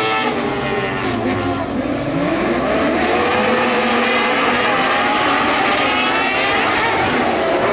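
Several motorcycle-engined kart cross buggies racing together, their engines revving up and down with overlapping pitches. A clear climb in pitch comes about two seconds in.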